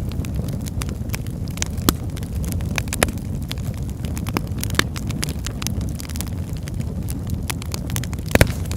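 Wood fire crackling: scattered sharp pops and snaps over a steady low rumble, with one louder pop near the end.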